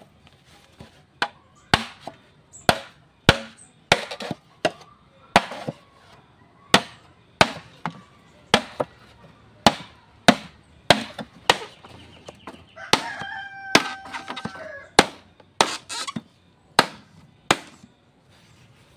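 Repeated chopping blows, about thirty sharp strikes at an uneven pace of roughly two a second. A rooster crows once about two-thirds of the way through.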